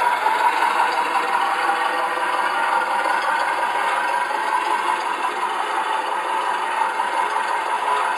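Simulated truck engine sound played by the MrRCsound module's speaker in a Tamiya Scania RC truck, running steadily with a rattly tone as the truck drives.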